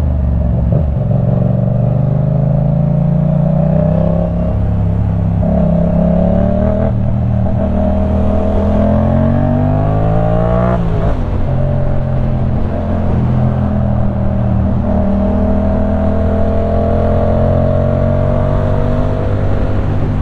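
2015 Yamaha MT-07's parallel-twin engine through a LeoVince One Evo full-system exhaust, under way and accelerating through the gears. The pitch climbs in steps with short breaks at each gear change, rises steeply to a peak that cuts off about eleven seconds in, then climbs slowly and steadily.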